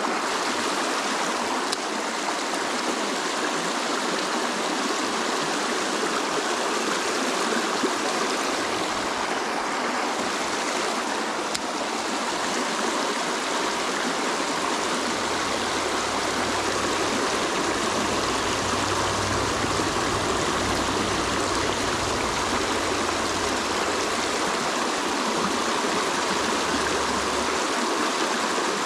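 Shallow, rocky mountain stream rushing over stones and riffles in a steady, even wash of water.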